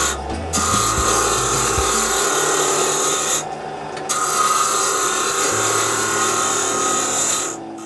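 Wood being worked with an abrasive tool: two long continuous passes of scraping, with a short break about three and a half seconds in.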